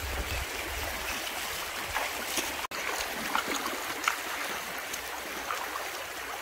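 Shallow river water rushing and sloshing around legs in waders as people wade through it, with scattered small splashes and clicks.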